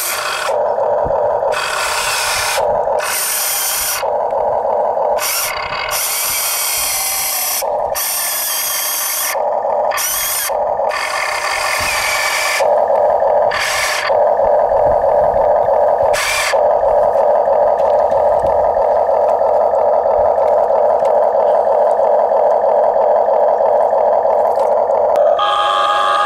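Huina radio-controlled toy excavator's electric motors and gearboxes whirring as the boom and bucket dig, starting and stopping in short bursts of a second or so, then running steadily for most of the last ten seconds.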